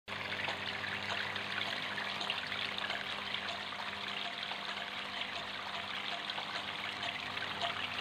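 Water trickling and splashing steadily from the spouts of a small homemade cement tabletop fountain into its pebble pool, with a faint steady low hum underneath.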